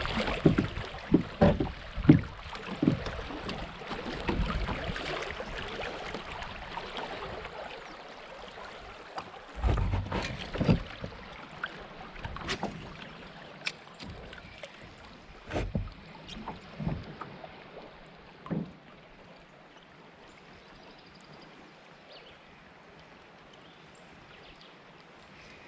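Kayak paddling on a creek: paddle splashes and sharp knocks come in clusters, thickest at the start and again in the middle, over a rush of moving water that gradually fades. In the last stretch only a faint, steady water sound remains.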